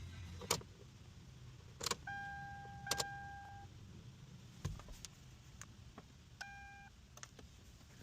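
A few sharp clicks and knocks, with two electronic beeps from a car's security system: one long, about a second and a half, then a short one of the same pitch.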